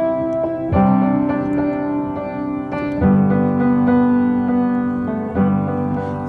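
Background music: slow piano chords, a new chord struck about every two to three seconds.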